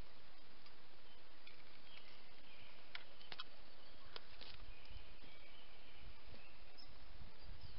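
Faint bird calls over a steady outdoor hiss, with a few sharp cracks of dry twigs and brush underfoot about three to four and a half seconds in. A low rumble builds near the end.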